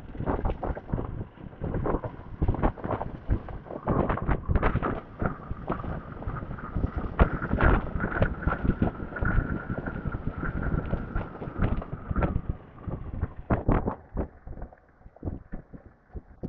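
Wind buffeting a helmet-mounted Type-C microphone on a moving motorcycle, gusty and uneven, over a low road and engine rumble. The wind eases off near the end.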